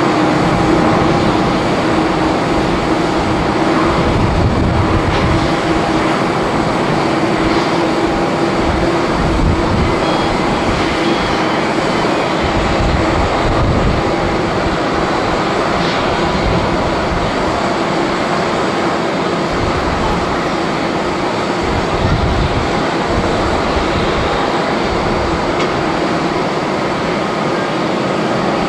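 Airbus A350-900 jetliner's Rolls-Royce Trent XWB engines running as it rolls out on the runway after landing: a steady jet noise with a held hum and an uneven low rumble.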